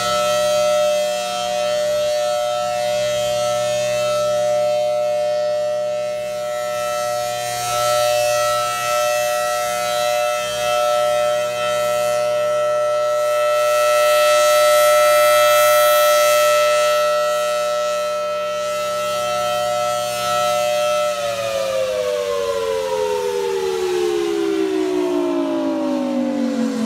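Federal Signal Thunderbolt 1000T outdoor warning siren sounding a steady two-tone wail, swelling and fading as its rotating horn sweeps around. About two-thirds of the way through it shuts off and the pitch slides steadily lower as it winds down.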